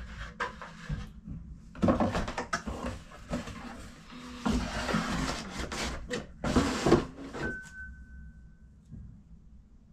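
Cardboard packaging being handled: irregular rustling, scraping and knocking of cardboard. Near the end the handling stops and a faint steady tone sounds for a little over a second.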